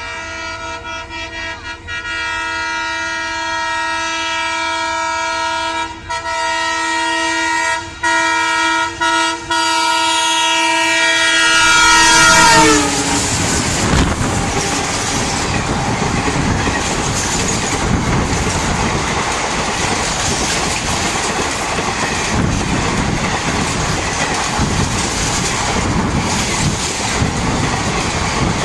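Locomotive horn of the 16359 Ernakulam Patna Express, sounded long with a few brief breaks, dropping in pitch just under halfway through as the locomotive passes at high speed. After that the passenger coaches rush past with steady wheel clatter over the rail joints.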